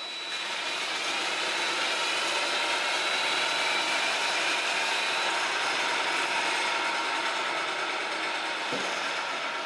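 A yellow DeWALT cordless drill spinning a lawnmower blade up to speed on a balancing shaft, the drill's motor and gears whirring and rising in pitch, with the rush of the spinning blade. Partway through, the drill is taken off and the blade spins freely, and there is a light knock near the end.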